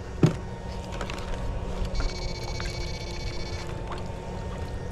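High electrical whine of an electrofishing shocker, coming in about two seconds in and cutting off about a second and a half later, over a steady low rumble. A sharp knock sounds about a quarter second in.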